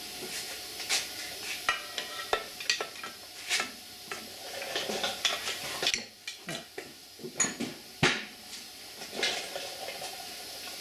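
Metal clinks, taps and scrapes from hand tools and loose engine parts during teardown of a Briggs & Stratton lawn tractor engine, as the piston is being taken out: irregular sharp knocks over a steady low hiss.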